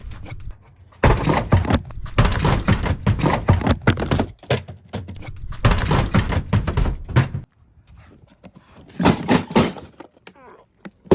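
Milwaukee Packout plastic toolbox thrown and tumbling on the ground: a long run of clattering knocks and thuds, then a shorter burst of knocks and one more sharp hit near the end.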